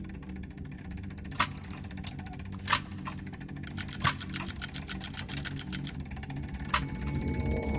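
Steady low mechanical hum with rapid, regular fine ticking that grows stronger in the second half, and a few sharper clicks.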